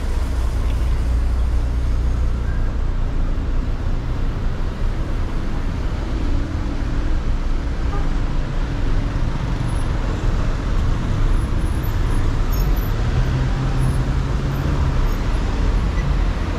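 Steady road traffic on a busy city street: car engines and tyres making a continuous low hum.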